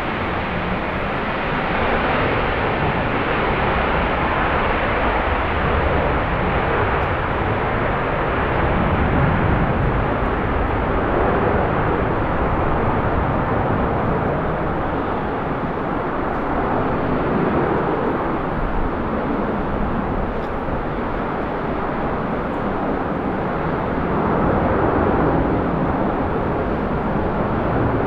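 Jet airliner engine noise, a steady loud rushing roar that swells a little now and then, with wind buffeting the microphone.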